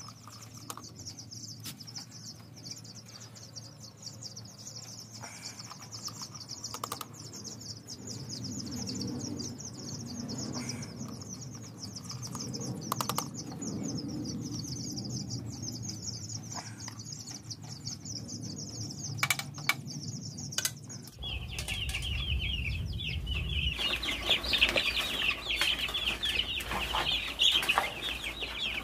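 A dense, rapid high-pitched chirping chorus with a few sharp clicks. About two-thirds of the way through it changes abruptly to a louder, lower crowd of broiler chicks peeping, over a low rumble.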